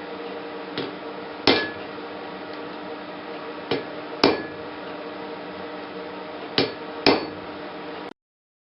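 Blacksmith's hammer striking on the anvil in three pairs, each a lighter tap followed by a louder blow with a short ring, over a steady hum. The sound cuts off abruptly near the end.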